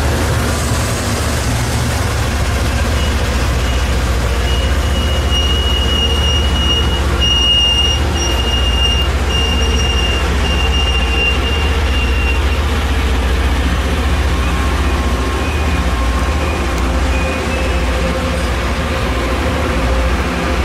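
LORAM rail grinder train rolling past close by: a loud, steady, deep rumble of its engines and wheels on the rails. A thin high whine holds for roughly ten seconds in the first half.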